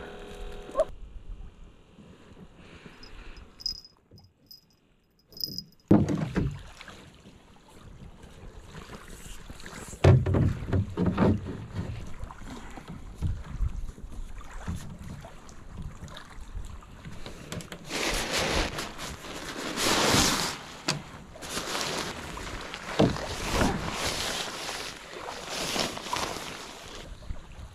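Handling noises from a small boat: scattered knocks and clatter, with one sharp loud knock about ten seconds in. Through the second half a plastic tarp rustles in repeated bursts as it is spread over the boat.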